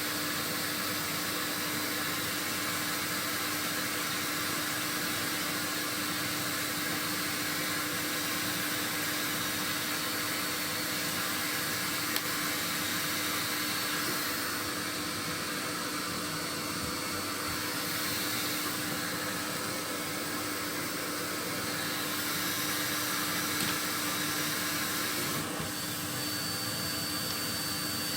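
Vacuum cleaner running steadily, a sweep's vacuum drawing soot during chimney sweeping, with a constant whine over its rushing noise.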